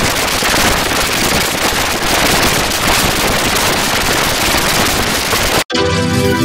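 Harsh, heavily distorted crackling noise from digitally effect-processed audio, filling every pitch evenly. It cuts off abruptly about five and a half seconds in, and after a split-second gap, electronic keyboard music with steady held tones starts.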